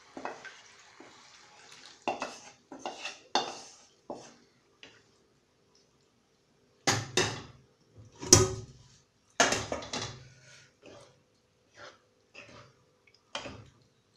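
Cookware clattering: a run of sharp knocks and clacks of a metal pot, pan and wooden spatula, loudest about seven to ten seconds in, with lighter taps near the end.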